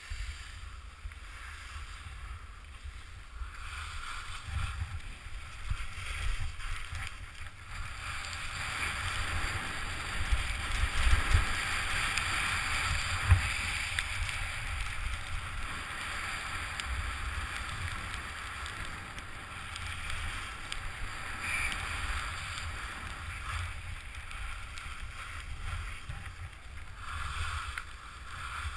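Skis sliding and scraping over packed snow on a downhill run, with wind buffeting the microphone as a low rumble. It grows louder through the middle stretch, with a couple of brief sharper scrapes.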